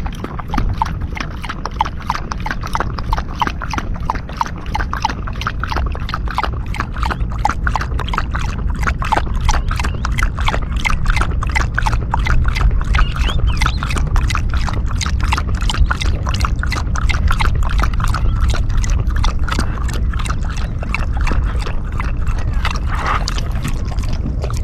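A dog lapping water in quick, even laps, about three to four a second, over a steady low rumble.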